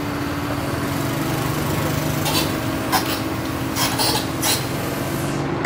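Komatsu PC130 hydraulic excavator's diesel engine running steadily, with a few sharp knocks in the second half.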